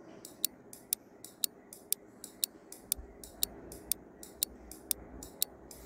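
Clock-tick sound effect of a quiz countdown timer, ticking steadily about twice a second.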